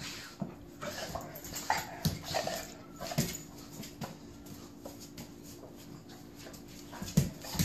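A dog making short, scattered vocal noises as it play-fights with a cat, mouthing it on the floor, with a few sharp clicks among them.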